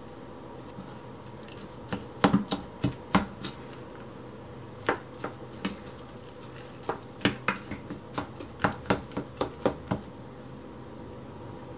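Utensil knocking and clacking against a stainless steel mixing bowl as a wet batter of somen noodles, kimchi and egg is stirred. The knocks come in clusters, a quick run about two seconds in, a few more near five seconds, and about three a second from roughly seven to ten seconds in.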